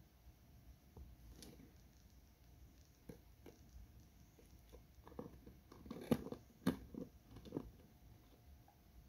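Jenday conure chewing and pulling at a plastic straw in a cup lid: scattered small clicks and scrapes, busiest and loudest between about five and seven and a half seconds in.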